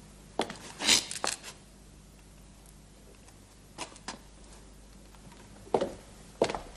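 Footsteps on a hard tiled floor: a few sharp steps in the first second or so, a pause of a couple of seconds, then a few slow steps again.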